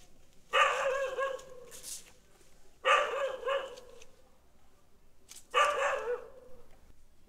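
An animal calling three times, each call drawn out for about a second with a wavering, quavering pitch, a couple of seconds apart.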